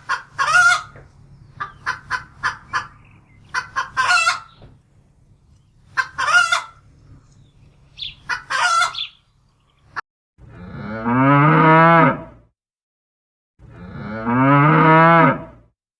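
Chicken calls: quick runs of clucks and short squawks, in four bunches over about nine seconds. Then a cow moos twice, each moo long and low, about two seconds.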